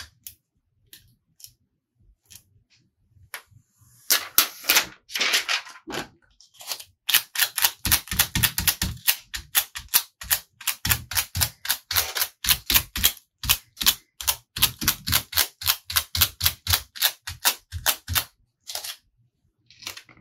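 Rapid, uneven series of sharp clicks or taps, about three to four a second, with a short rustling stretch about four seconds in.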